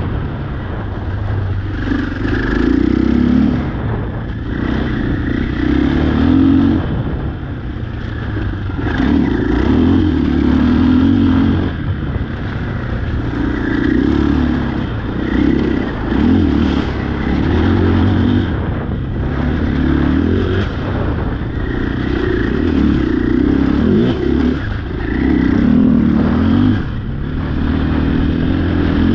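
Off-road vehicle engine revving up and down over and over while driving a rough trail, with clattering and scraping from the vehicle.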